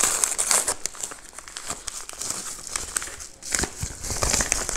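Hands crinkling and unwrapping crumpled white paper packaging, an irregular run of crackles, with a few dull knocks near the end.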